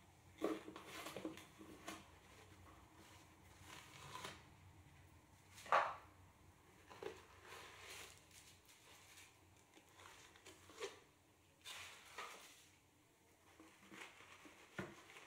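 Quiet handling sounds: soft taps and rustles as fabric slippers are set down and shifted on the rim of a cardboard box, with a sharper knock about six seconds in.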